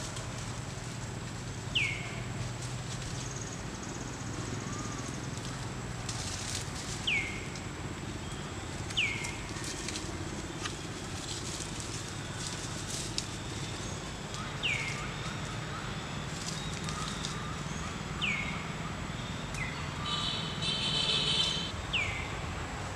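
A forest bird's short whistle falling sharply in pitch, repeated six times at irregular gaps of a few seconds. Light rustling of leaves and a brief buzzy trill near the end.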